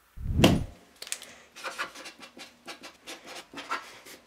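A low thump about half a second in, then a run of short scratchy strokes of a marker pen writing on a strip of paper.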